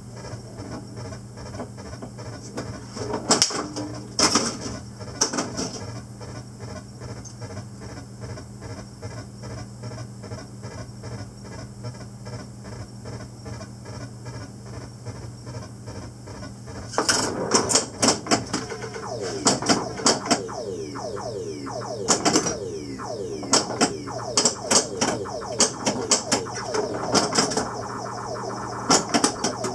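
Williams Black Knight pinball machine in play: the game's steady pulsing electronic drone, with sharp mechanical clacks from flippers, bumpers and coils. About halfway through, the clacks come thick and fast along with gliding electronic sound effects.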